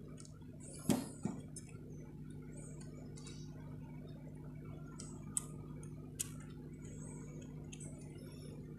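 Small sharp clicks and ticks of hard plastic parts on a toy RC off-road car's chassis being handled and pressed, the loudest two close together about a second in and two more a little past the middle. A steady low hum runs underneath.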